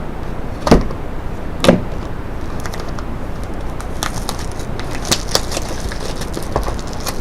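A sealed card box being handled and opened on a table: two sharp knocks about a second apart, then a run of crinkling and clicking from the wrapping and cardboard.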